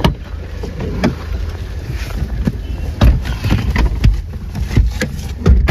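Renault Duster running and moving off: a steady low rumble with wind buffeting the microphone and several sharp knocks.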